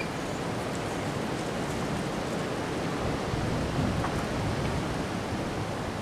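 Windstorm gusting through tall bare trees: a steady rushing noise, with low rumbling of wind buffeting the microphone.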